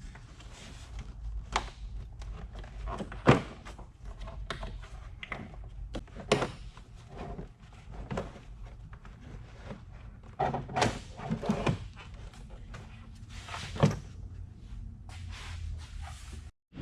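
Factory plastic airbox being worked loose and lifted out of the engine bay: irregular thunks, knocks and plastic clatter, sharpest about three seconds in and again near the end, over a faint low hum.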